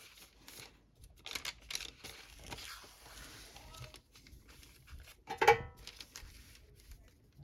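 Silicone parchment paper and the comic book rustling and crinkling as they are handled and set into a heat press, with a brief, loud, pitched squeak about five and a half seconds in.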